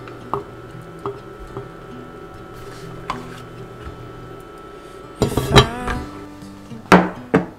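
Heavy enamel pot lid set down onto the pot: a quick run of loud ringing clanks about five seconds in, then two more sharp clinks near the end, after a few light spoon taps on the pot earlier, over soft background music.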